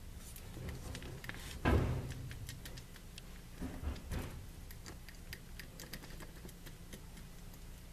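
Light clicks and ticks of a Raymarine ST4000+ autopilot drive unit's gearbox parts being jiggled and fitted together by hand, with a louder knock about two seconds in and a couple of smaller knocks near the middle.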